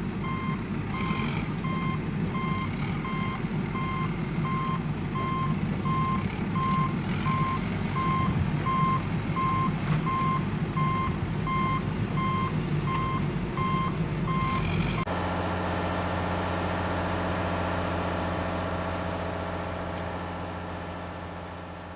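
Truck reversing alarm beeping steadily over a rumbling truck engine. About fifteen seconds in, both cut off suddenly and a steady droning hum at one fixed pitch takes over, fading out near the end.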